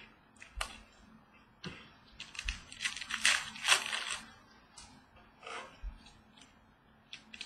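Trading cards being handled and slid against one another, with a few light clicks and a rustling, scraping stretch in the middle.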